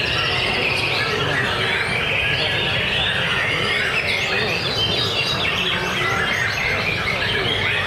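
Dense, continuous song of many caged songbirds singing at once, white-rumped shamas (murai batu) among them, fast overlapping trills and chirps at a steady level.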